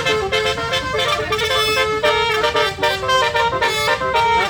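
Tour bus's basuri musical air horn playing a quick melody of short, changing notes: the 'telolet' horn.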